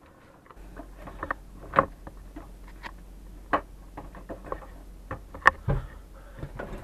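Hands handling the water heater's brass fittings and valves: irregular light clicks and taps with a few sharper knocks. A faint steady low hum runs underneath from about half a second in.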